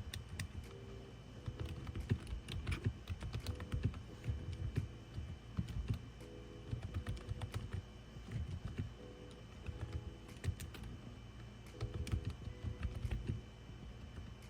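Fast, irregular typing on a cheap RGB gaming keyboard, as a sound test: a steady stream of quiet, soft key presses with low thuds as the keys bottom out.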